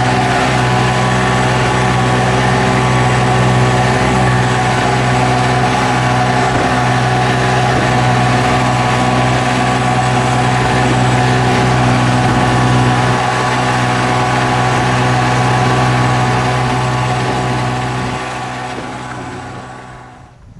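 Boat's outboard motor running steadily at cruising speed, a constant drone over the rush of wind and wake water. The sound dies away over the last couple of seconds.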